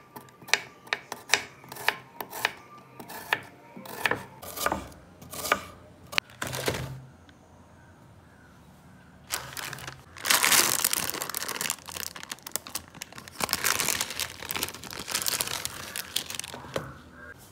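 A kitchen knife slicing a red onion on a wooden chopping board, a sharp tap with each cut, about two a second. After a short lull, the plastic wrapper of a Maggi instant-noodle packet crinkles loudly as it is opened and the noodle block is taken out.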